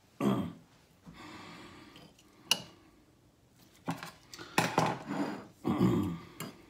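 Kitchen handling noises: a sudden knock near the start, soft rustling, one sharp click, then a run of clinks and knocks of dishes or utensils being moved about.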